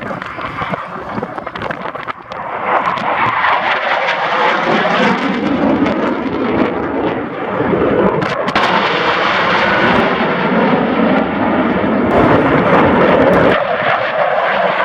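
Loud jet engine noise from a USAF F-16 Fighting Falcon flying overhead. It dips briefly about two seconds in, then builds again and stays loud.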